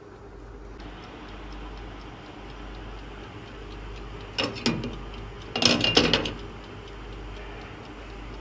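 Toaster oven's mechanical wind-up timer ticking steadily as it counts down. About halfway through, and again a second later, the glass lid of the griddle pan is lifted and set back down with a clatter.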